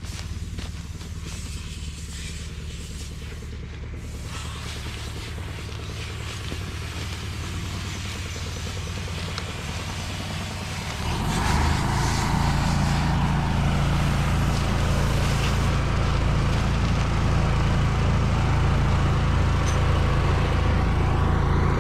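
A vehicle engine running steadily, which steps up and gets clearly louder about eleven seconds in.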